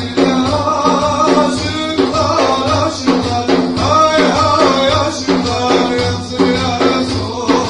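Music with a melody over a steady, regular beat; a singing voice may be part of it.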